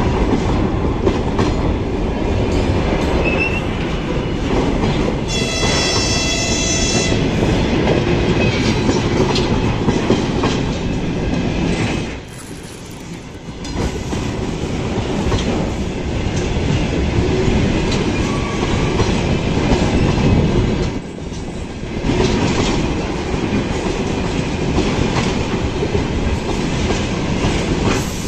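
Freight wagons rolling past at close range, first container flatcars and then tank cars, with a steady rumble and wheels clattering over the rail joints. About five seconds in, a high squeal rings out for under two seconds. The noise dips briefly twice, once about halfway through and again later.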